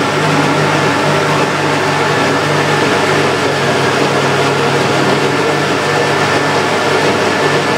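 Countertop jug blender running steadily at top speed, its motor whirring as it purées fried mushrooms, cream and red wine into a sauce.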